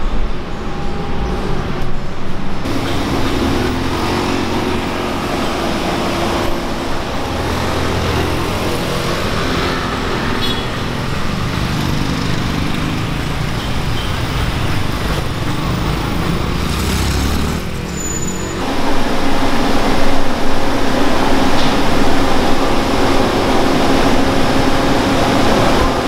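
Road traffic noise: a steady rumble of vehicle engines running and passing, with a low engine hum. The sound changes abruptly about two and a half seconds in and again about eighteen seconds in.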